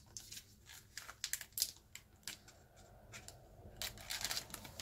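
Plastic pocket sleeves of a trading-card binder and a card being handled, making irregular small clicks and crinkles as a card is worked into a pocket. There is a denser rustle about four seconds in.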